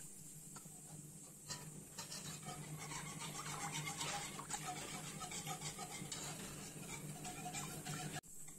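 Wire whisk beating a thin milky cream mixture in a nonstick pot, a fast run of clicks and swishes as the tines hit the pan and churn the liquid, picking up about a second and a half in. A low steady hum runs underneath.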